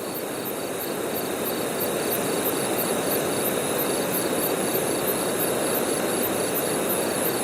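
Night insects chirping in an even rhythm of about three chirps a second over a steady rushing noise.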